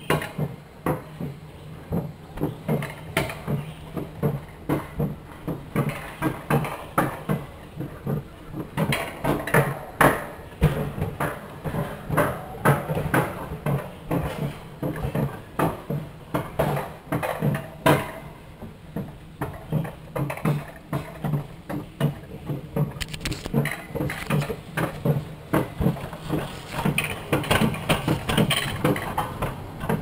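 Bobsled-style ride car running down steel rails, its wheels rolling with a steady low hum and frequent irregular clacks and knocks from the track.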